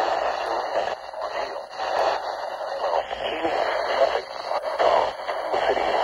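NOAA Weather Radio broadcast voice reading out a tornado warning, through the small speaker of a Midland weather radio, tinny and narrow in sound.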